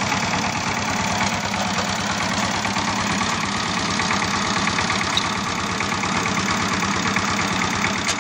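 A steady engine-like running sound with a fast, even chugging pulse that keeps the same level throughout.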